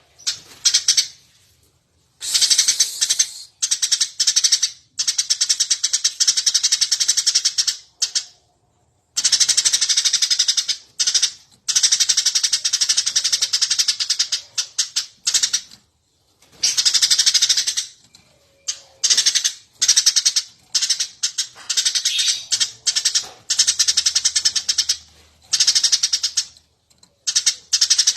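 Eurasian tree sparrow chirping nonstop, in loud runs of rapid high chirps lasting one to three seconds with short pauses between them.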